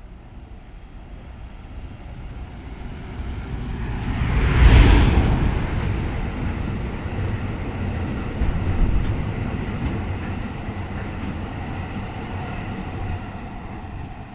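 Electric-locomotive-hauled freight train passing: it grows louder, the locomotive goes by about five seconds in, then the wagons keep rumbling past with a few clacks of wheels over rail joints.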